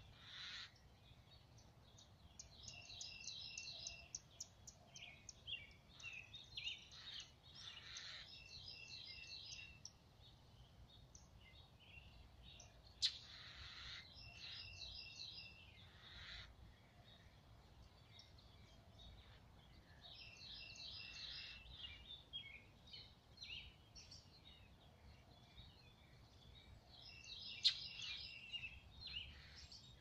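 Northern mockingbird singing faintly: phrases of quick, high repeated notes, each phrase repeated several times, broken by short harsh calls. Twice a sharp click cuts through.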